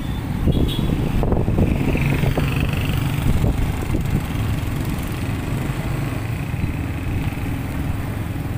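Motorcycle engine running steadily with road noise while riding along a street, a continuous low rumble with a faint whine.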